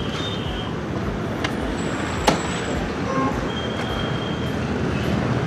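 Small motor scooter engine running as it pulls in close and is turned to park, over steady roadside traffic noise. One sharp click comes about two seconds in.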